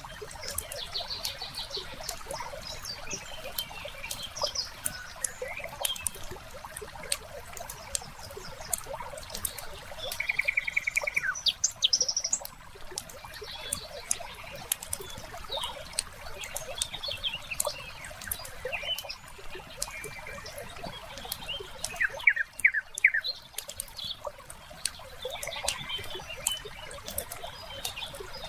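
Wood fire crackling with frequent sharp pops and snaps, layered with birds chirping and calling. A rapid bird trill comes about a third of the way in, and a few quick downward chirps come around three quarters of the way through.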